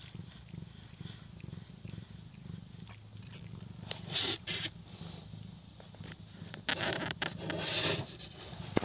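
Ginger mother cat purring steadily to her newborn kittens, with two louder rustling stretches, around the middle and near the end, and a sharp click at the very end.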